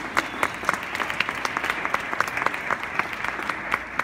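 Audience applauding, with sharp single claps standing out against the steady patter of the crowd.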